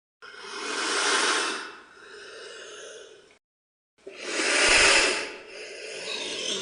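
An animal breathing out hard and noisily, twice. The first breath swells and then trails off over about three seconds, and the second follows after a short gap.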